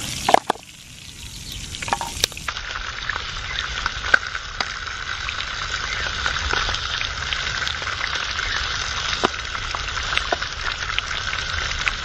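Whole trout frying in hot olive oil and butter in a pan: a steady sizzle full of small pops and crackles. A sharp click comes right at the start, the sizzle is quieter for a second or two after it, then builds back up.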